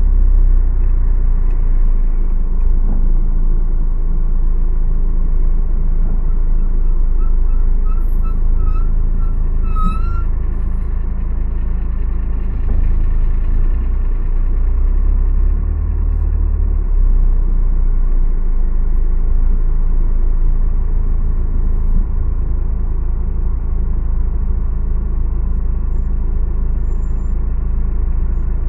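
Car driving, heard from inside the cabin: a steady low rumble of engine and road noise. A short run of high chirps comes about seven seconds in, ending on a louder rising one about ten seconds in.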